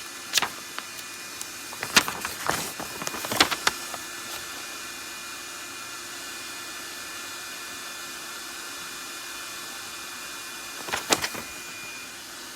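Portutif cordless handheld vacuum cleaner's motor running steadily. Several sharp knocks and clicks of the unit being handled come in the first few seconds and twice more near the end.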